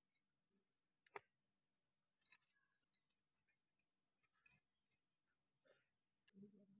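Near silence with a few faint, scattered clicks and ticks.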